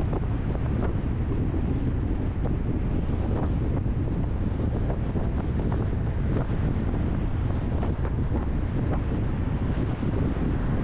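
Steady rumble of a car on the move, road and wind noise on the microphone, with faint irregular clicks.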